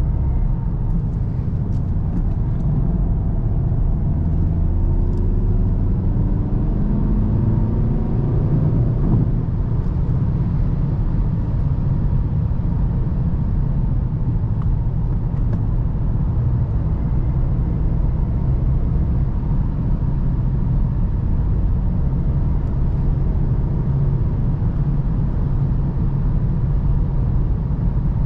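VW Golf GTD's 2.0 TDI four-cylinder diesel driving along with a steady low rumble of engine and road noise. The engine note rises over roughly the first nine seconds, then settles into an even drone.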